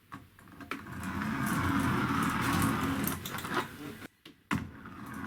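A 3D-printed wind-up car's plastic gear train whirring as the spring unwinds and drives it. The whirr builds over about a second, stays loud for two seconds and fades. After a click it starts again, quieter and steadier.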